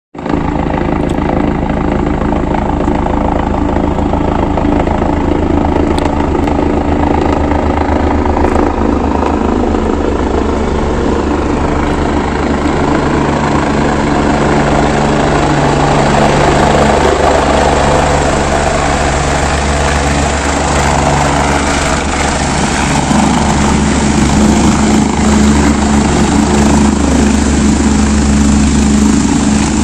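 A helicopter approaching and coming in to land, its rotors and engine running continuously and growing gradually louder as it descends to a hover just above the ground.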